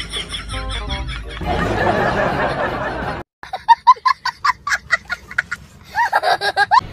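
A young child laughing hard in a quick run of short bursts, starting about halfway in. Before the laughter, background music and then a rushing noise that cuts off abruptly.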